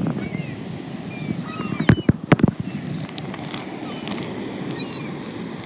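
Gulls giving short high cries over a steady rush of wind on the microphone and surf. A few sharp knocks about two seconds in are the loudest sounds.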